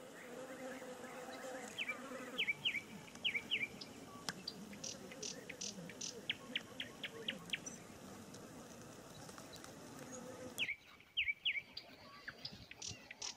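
Small birds chirping in the reeds: short, repeated high calls with a quick hooked shape in twos and threes, and a run of rapid high ticks in between, over a faint steady outdoor background that drops away abruptly about ten seconds in.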